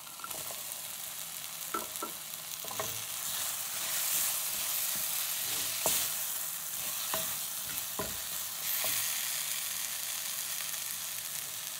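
Chopped onion, tomato and fresh coconut pieces sizzling in oil in a nonstick pan, stirred with a spatula that scrapes and knocks against the pan every second or so.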